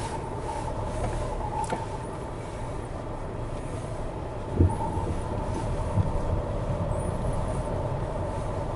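Jeep Renegade Trailhawk's 2-litre diesel engine running and the car driving over a rough gravel track, heard from inside the cabin as a steady low rumble with a faint hum. Two short knocks come about four and a half and six seconds in.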